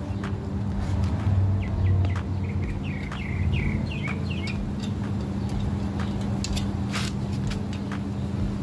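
A bird calls a quick run of short, falling notes for about three seconds, starting about a second and a half in, over a steady low hum. Later come a few sharp clicks as a knobby tire is worked by hand off a bicycle wheel rim.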